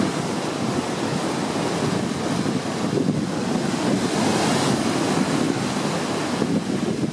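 Heavy Atlantic storm surf breaking and churning in a continuous loud rush, with strong wind buffeting the microphone.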